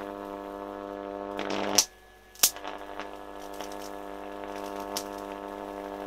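High-voltage arc from two microwave oven transformers (secondaries in series), a flame-like arc drawn between a wire tip and a metal rod, giving a loud, steady mains buzz. About two seconds in it goes out with a crack and restrikes with another a moment later, then buzzes on.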